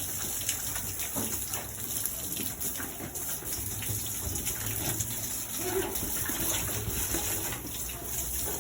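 Water running and splashing as piglets are bathed.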